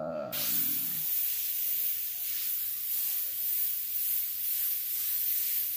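Airbrush spraying paint onto paper: a steady hiss of compressed air that comes on right at the start and holds, with small swells as the stroke moves.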